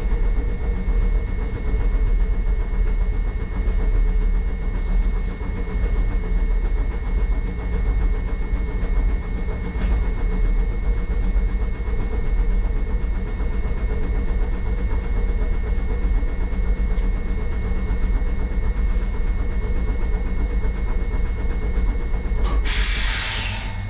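Hankai Tramway tram standing at a stop, its onboard equipment running with a steady low hum and rumble. Near the end comes a short burst of compressed air hissing.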